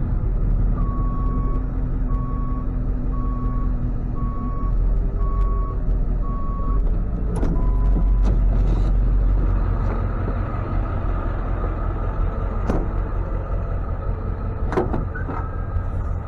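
Tow truck engine running with a low rumble while its back-up alarm beeps about once a second, six times, then stops about seven seconds in. A few sharp knocks follow.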